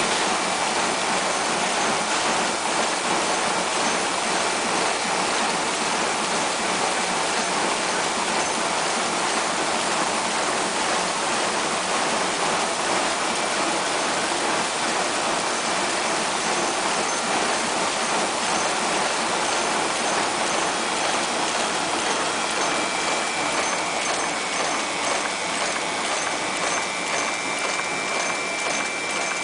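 Multi-former wire and strip forming machine running, its vibratory bowl feeder churning a mass of small metal parts in a dense, steady rattling hiss. A faint high whine joins in near the end.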